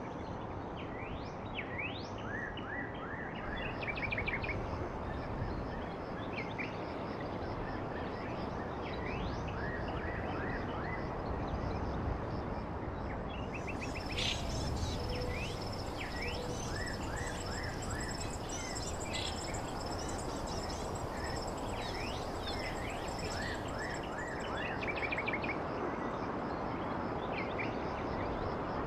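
Outdoor ambience sound effect: small birds chirping repeatedly over a steady background rumble of environmental noise, with a thin, high, steady tone joining about halfway through.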